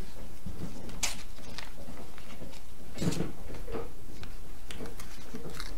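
Scattered paper rustles and light clicks from hands opening and sorting envelopes, with the clearest rustles about one second and three seconds in. A steady low electrical hum lies under it.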